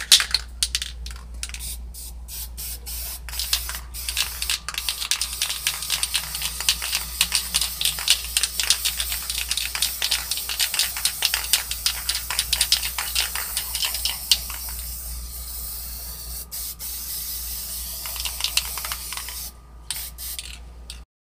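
Aerosol spray paint can hissing in many rapid short bursts, then in a steadier hiss over the later seconds, cutting off shortly before the end.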